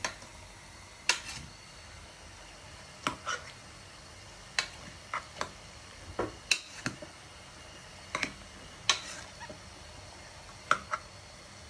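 A metal spoon stirring chopped raw vegetables in a pressure cooker, striking the pot with irregular sharp clinks about once a second.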